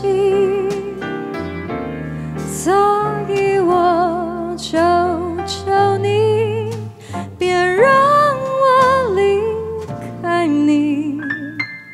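Music: a jazz-style arrangement of a Mandarin pop ballad. A lead melody of long held notes with wide vibrato runs over a moving bass line, with light percussive accents.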